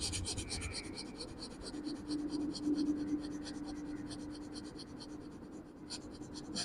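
A rapid, even series of short, forceful exhalations, puffs of breath pushed out one after another, stopping about five seconds in. This is the quick, short breaths out of a yoga breathing exercise.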